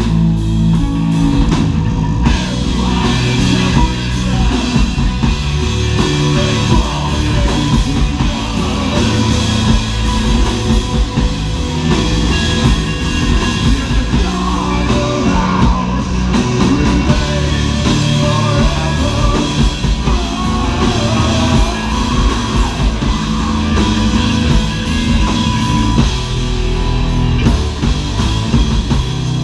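Heavy metal band playing live: two electric guitars, bass guitar and drum kit, with a vocalist on the microphone.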